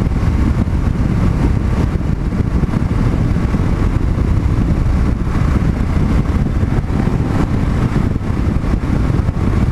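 Kawasaki KLR650's single-cylinder engine running at a steady cruise, mixed with wind noise on the helmet-mounted microphone.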